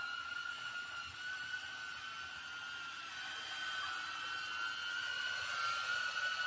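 Small 3-inch ducted quadcopter's EMAX ECO II 2004 brushless motors and propellers running in a hover overhead: a steady high whine that wavers slightly in pitch.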